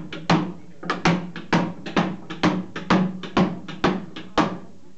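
Hammer striking a cooper's hoop driver against the metal hoop of a wooden wine barrel, driving the hoop down to tighten the staves. A quick run of sharp knocks, about three a second, each with a short ring, stopping near the end.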